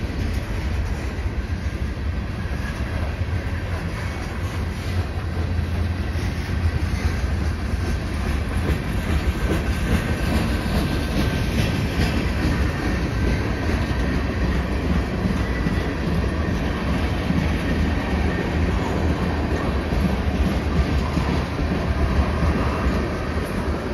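Freight train's covered hopper and tank cars rolling past: a steady rumble of steel wheels on the rails.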